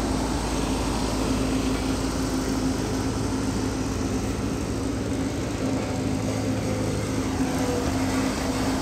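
Bobcat skid-steer loader's diesel engine running at a steady speed, a constant drone with no revving.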